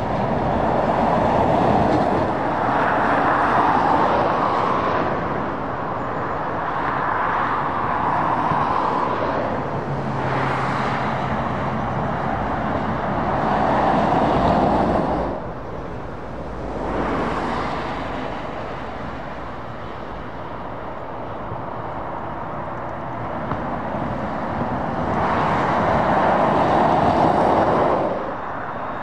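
Road traffic on a dual carriageway: heavy lorries and cars passing one after another, the tyre and engine noise swelling and fading every few seconds, with a quieter spell about halfway through.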